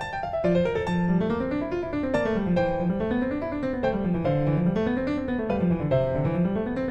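Background piano music: quick rippling arpeggios rising and falling over a low bass line.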